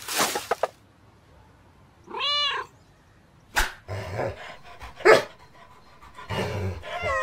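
Pet vocalisations. A cat gives a single meow, rising then falling, about two seconds in. A dog makes a short rough vocalisation, loudest about five seconds in, and near the end a cat gives a falling call.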